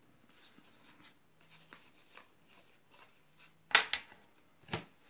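Magic: The Gathering trading cards being handled and sorted by hand: faint soft rustles and small flicks, then two louder short rustles near the end.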